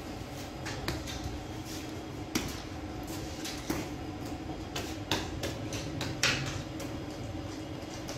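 Irregular knocks and clatters from a baker handling sangak dough at the oven paddle, a few sharper ones about two and a half, four, five and six seconds in, over a steady low hum.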